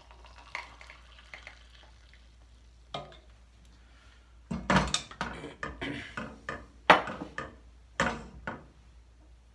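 Kitchenware being handled on a counter: a kettle and a ceramic mug set down and moved, giving a run of knocks and clinks in small clusters, the sharpest about seven seconds in.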